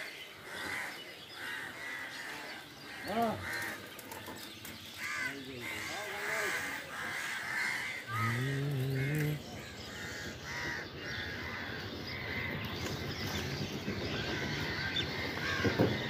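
Crows cawing repeatedly, with voices in the background.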